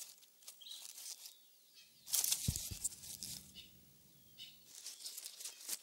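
Faint outdoor bush ambience: a brief rustling about two seconds in with one sharp click, and a few faint bird chirps.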